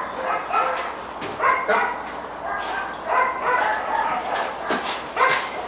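German Shepherd-type dog giving a string of short barks and yips, several calls with gaps between them.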